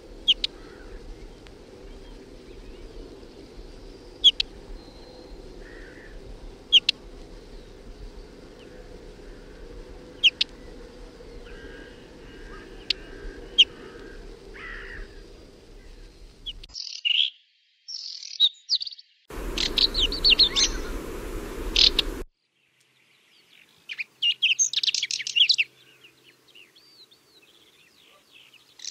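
Whinchat calling with single sharp high notes every few seconds. From about two-thirds of the way in, short bursts of rapid song follow, broken by abrupt cuts between recordings.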